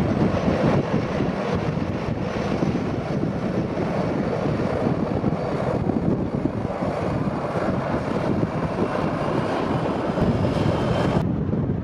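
Jet engines of taxiing Airbus airliners running at low taxi power, a steady rush with a faint whine, under gusty wind buffeting the microphone. The sound changes abruptly near the end.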